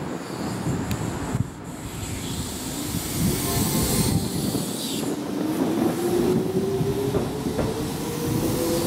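Keihan 6000 series electric train pulling out, its traction motors giving a whine that rises steadily in pitch from about five seconds in as it accelerates. A few sharp clicks of the wheels over rail joints come near the end.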